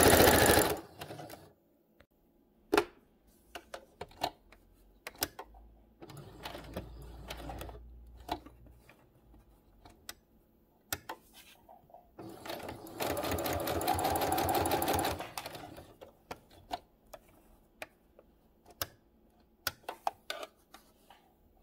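Electric domestic sewing machine stitching two layers of fabric in short runs: one run ending about a second in, and a longer run of about three seconds in the middle, with scattered sharp clicks between runs.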